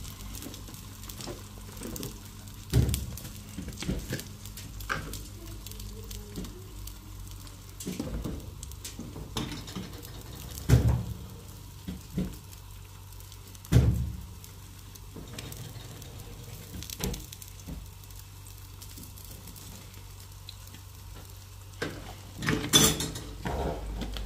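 Kitchen work: scattered sharp knocks and clinks of pots and utensils over a faint steady hiss, with a cluster of clatter near the end.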